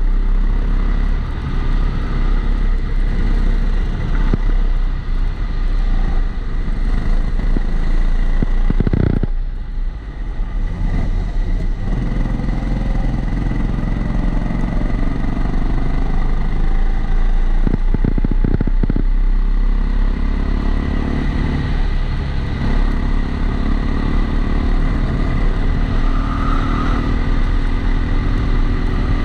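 Kombikart Eco rental kart engine under load, heard from a camera in a waterproof housing, with an extra noise from the housing. The engine note falls away about nine seconds in and again around eighteen seconds as the kart slows for corners, then builds back up under acceleration. A steady high whine runs alongside it.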